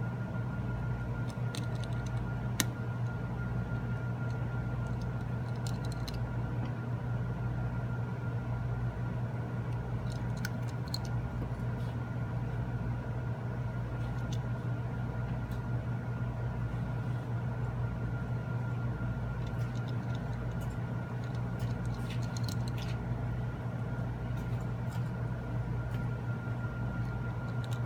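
A steady low hum with a thin high whine underneath scattered faint small clicks: tiny screws and a precision screwdriver or tweezers touching the metal plates inside an iPhone 6 during reassembly.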